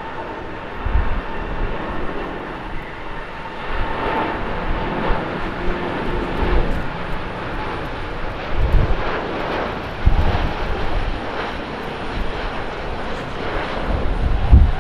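Boeing 787-9 Dreamliner's jet engines at takeoff thrust on the takeoff roll: a steady rushing jet noise that grows louder toward the end, with low rumbles swelling several times.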